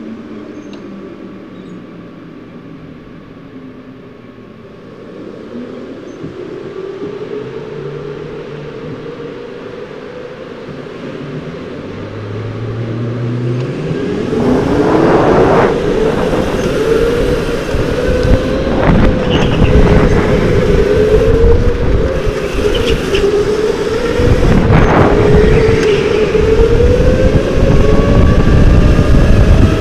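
Go-kart motor running quietly at first, then rising sharply in pitch and loudness as the kart accelerates about halfway through, then holding a high pitch that dips and climbs as it goes through the corners, with a few short bursts of noise.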